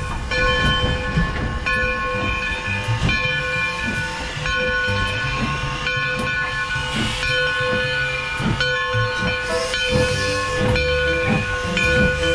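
Black River & Western's coal-fired steam locomotive No. 60 moving close by, with steam hissing.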